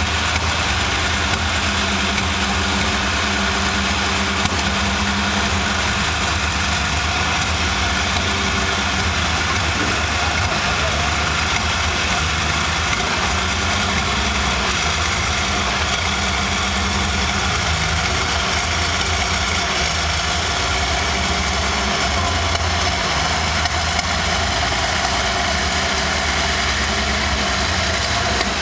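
StuG III assault gun's engine running steadily at low revs as the tracked vehicle slowly turns in place.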